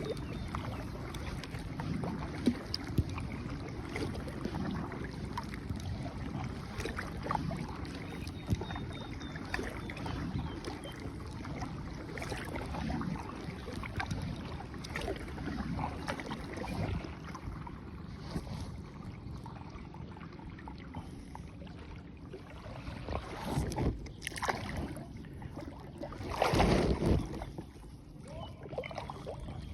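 Water sloshing and knocking around a hand-paddled rowing boat, with scattered small knocks and wind on the microphone. A louder rush of noise comes near the end.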